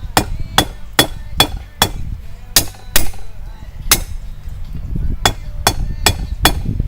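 Blacksmith's hand hammer striking hot steel on an anvil: about a dozen blows at two to three a second, with a short break near the middle, each with a brief metallic ring. He is forging a new flat onto a knife's tapering tail to keep drawing it down.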